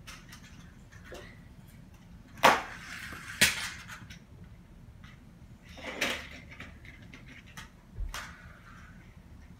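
Toy cars and a plastic ramp knocking and clattering as a child handles them: two sharp knocks about a second apart a few seconds in, then softer clatters near the middle and end.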